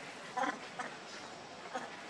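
Macaques giving a few short calls about half a second apart over a steady background hiss.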